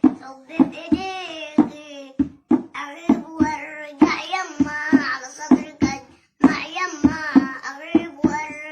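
A young boy singing in Arabic, unaccompanied by instruments but over a steady percussive beat of about two to three strikes a second. A short break in the voice comes near six seconds in.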